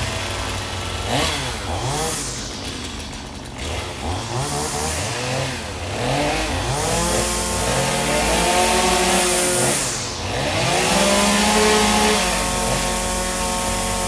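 Small two-stroke engine revved in several quick blips from idle, then held at high revs for a few seconds. It drops back about ten seconds in and is run up high again.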